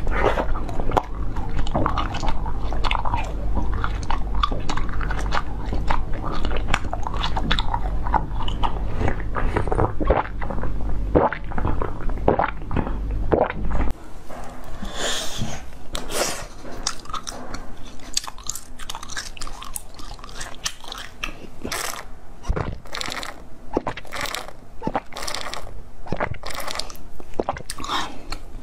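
Close-miked biting, crunching and chewing. In the first half it is a yellow corn-cob-shaped food, over a steady low hum. After a sudden change about halfway through it is translucent jelly cubes, with sharper, separate crunches.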